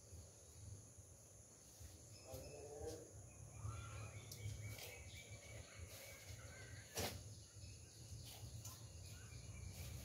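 Faint outdoor ambience: a steady high-pitched insect drone with a few faint bird chirps, and a single sharp click about seven seconds in.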